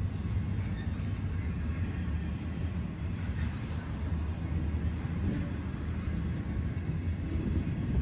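Double-stack intermodal freight train rolling past close by: a steady low rumble of the cars running on the rails.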